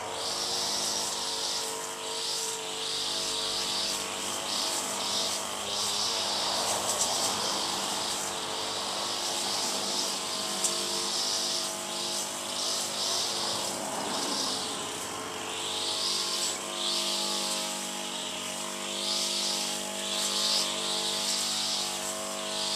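Back-yard ambience: a steady mixed hum of several tones with a high, hissing chirr above it that swells and fades in pulses every second or so.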